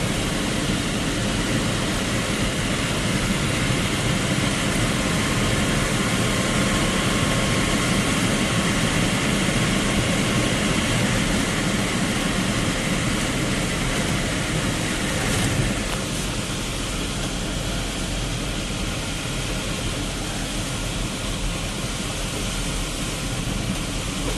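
A vehicle driving in heavy rain: a steady rush of engine, tyres on the wet road and rain. The noise eases slightly about two-thirds of the way in.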